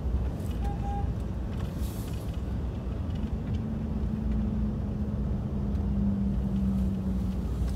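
A vehicle driving on a road: steady low rumble of engine and tyres. A steady hum joins about three seconds in and drops away shortly before the end.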